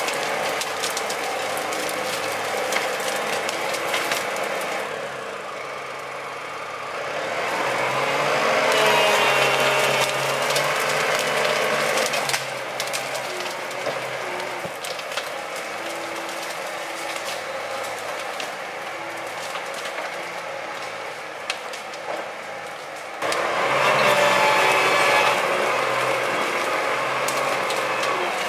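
Valtra A124 forestry tractor working under load as it pulls a loaded log trailer with hydraulic wheel drive. It has a steady running sound that rises into a louder, higher whine twice, about eight seconds in and again near the end, with scattered cracks of branches under the wheels.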